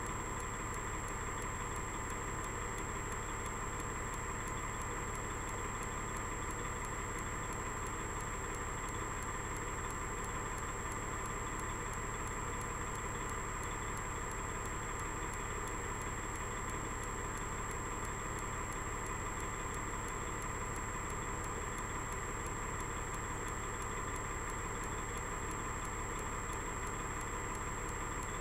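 Kenworth road-train prime mover's diesel engine idling steadily with the truck standing still. A constant high-pitched whine sits over it.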